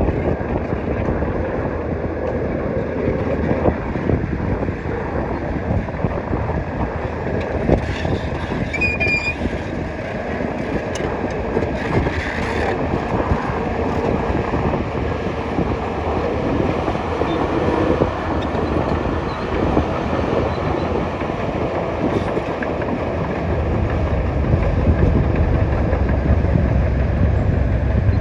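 Bulldozer running, its engine and crawler tracks making a dense, continuous clatter with a steady mid-pitched drone, and a heavy low rumble building over the last few seconds.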